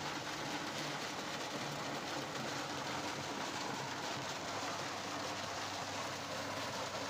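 Electric drum-type walnut sheller running, a steady dense clatter of walnuts churning inside its drum.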